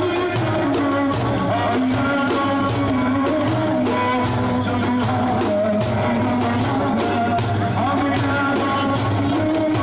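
A man singing a Turkish folk song through a microphone and PA speaker, his voice holding and bending long notes, with frame drums beating a steady rhythm behind him.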